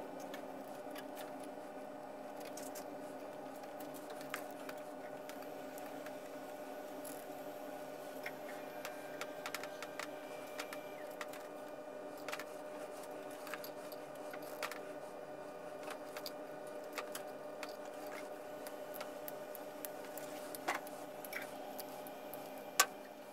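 Nylon zip ties being pulled tight around cables and a plastic cable chain: scattered small ratcheting clicks and plastic rustles, with one sharper click near the end. A steady electrical hum runs underneath.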